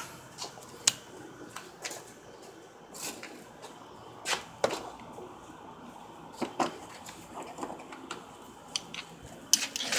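Scattered short, light clicks and knocks at irregular intervals over quiet room tone.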